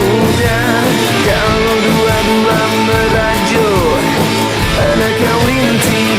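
A rock song with electric guitar and a steady beat, with a wavering melody line over it, the voice or a guitar lead sliding in pitch.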